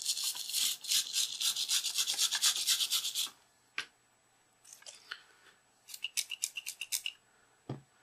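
Toothbrush scrubbing the carbon contact pads of a rubber remote-control keypad with isopropanol: quick back-and-forth strokes, about six a second, stopping about three seconds in. Then a click, a few fainter rubbing strokes and a low knock near the end.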